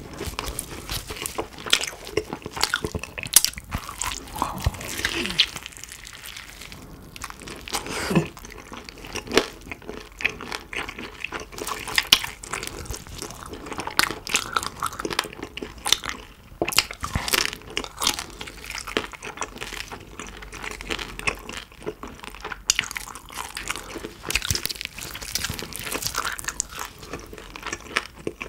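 Close-miked biting and chewing of crispy-skinned roast pork knuckle (Schweinshaxe): the crackling skin crunches, with wet chewing sounds and irregular crisp clicks all the way through.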